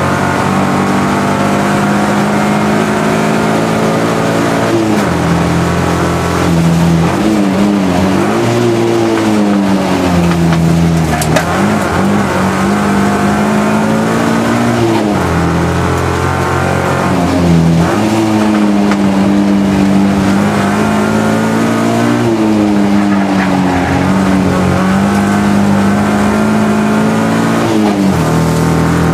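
Race car's engine heard from inside the cabin, holding steady revs for the first few seconds, then rising and falling over and over as it accelerates and lifts through the corners.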